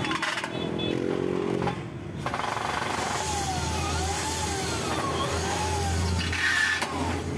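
Cordless drill/driver driving screws into an aluminium sliding-door frame: a short run of motor whine in the first second and a half and another brief burst near the end, over a steady low rumble.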